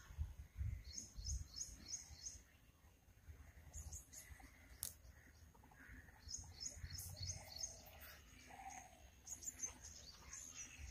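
A bird calling: runs of quick high chirps, about five a second, repeating several times. There are a few low rumbles near the start.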